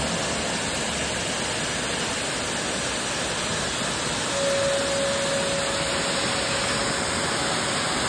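Steady rushing roar of Shifen Waterfall's water pouring over a wide rock ledge. A single steady tone joins about halfway through.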